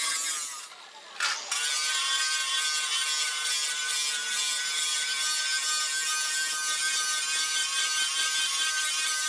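Electric angle grinder with a grinding disc working the edge of a steel hoe blade, giving a steady high whine. About half a second in the whine falls in pitch and fades. It cuts back in sharply at about a second and a half and then runs steadily.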